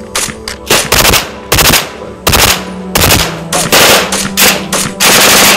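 Automatic weapons firing in repeated short bursts of rapid shots, a longer burst near the end, with blank-firing adapters on the muzzles in a training exercise.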